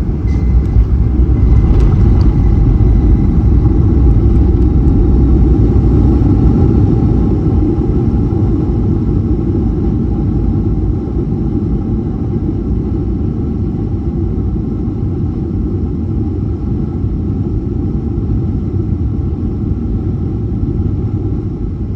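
Inside the cabin of a Boeing 737-900ER on its landing roll, a loud low rumble of the engines and the wheels on the runway. A few light clicks and a thin tone come in the first couple of seconds. The rumble is strongest for the first several seconds, then slowly eases as the jet slows.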